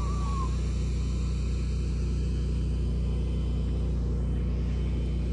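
A steady low hum, like a motor running. A short, faint whistling call fades out just after the start.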